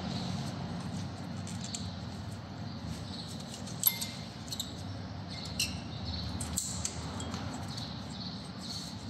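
Metal brake pad being worked into the caliper carrier's retaining clips: a few small metallic clicks and scrapes, the sharpest about four seconds in, over a steady low background hum.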